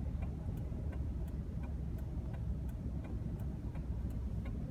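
Car interior at speed: a steady low road and engine rumble with a regular ticking of about two clicks a second from the turn-signal indicator.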